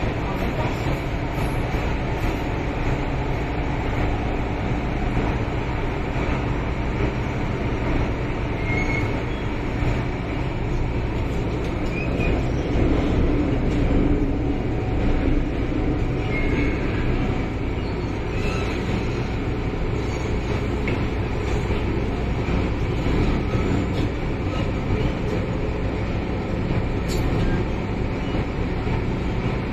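Inside a moving Hong Kong MTR Island Line M-Train car: the steady rumble of wheels on rail mixed with the traction motors' hum, a little louder about halfway through. In this car the motor sound comes out unusually doubled.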